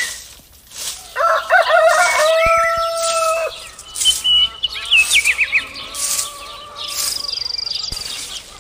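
A rooster crows once, starting about a second in with a wavering call that ends on a long held note, followed by small birds chirping in quick rising notes and a thin high whistle near the end, with a few light clicks.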